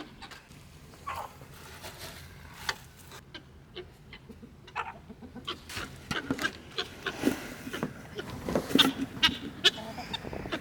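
Farm animals calling in short, scattered bursts, mixed with sharp clicks and knocks.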